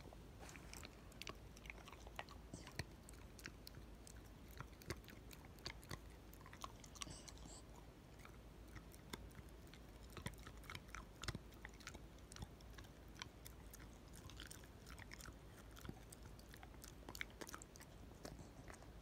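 Corgi chewing, a steady run of small sharp crunching clicks from its mouth.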